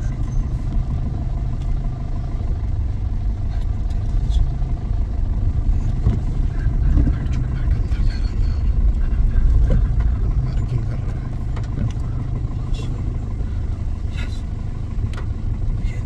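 A vehicle engine running steadily with a low, even rumble, heard from the vehicle itself.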